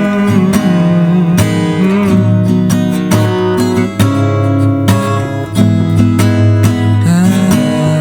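Instrumental music: strummed acoustic guitar with other instruments playing a melody, without vocals.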